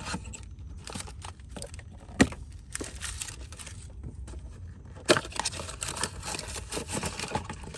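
Packaging of new ignition coil packs being opened and handled: crinkling and rustling with sharp knocks about two and five seconds in, the handling getting busier in the second half.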